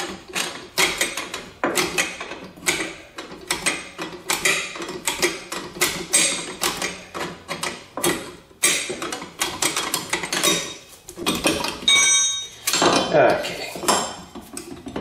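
Rear drum brake star-wheel adjuster being spun in with a tool: a quick, uneven run of metallic clicks, several a second, as it backs off shoes that are adjusted way out for wear. Near the end, a brief metallic ringing and scrape as the brake shoes are handled.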